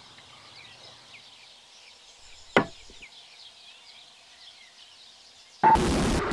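Faint birdsong in open country, with one sharp knock about two and a half seconds in. Near the end a loud, harsh, steady noise cuts in abruptly and becomes the loudest sound.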